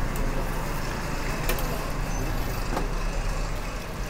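Steady din of a busy döner shop's kitchen: a low rumble under a general noisy haze, with two sharp clicks about a second and a half and about three seconds in.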